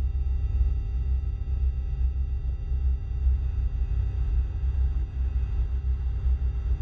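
Synthesized UFO hover sound effect: a deep, rapidly wavering low drone with faint steady high tones held over it.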